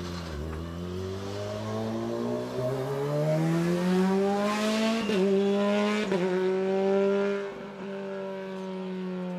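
A racing car's engine accelerating hard, its pitch climbing in steps over the first few seconds. The pitch breaks briefly twice, about five and six seconds in, then holds steady, and the sound drops away in loudness near the end.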